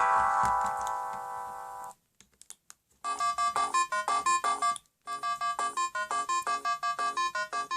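Siemens SL55 mobile phone playing its built-in polyphonic ringtones: a held electronic chord fades out about two seconds in, followed by a short gap with a few faint clicks. Then another ringtone starts, a quick run of short electronic notes, about six a second, that pauses briefly and starts over.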